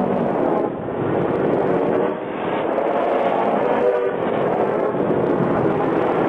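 Steady mechanical drone of a running vehicle as a looped sound effect, with several pitched tones that waver slowly in pitch.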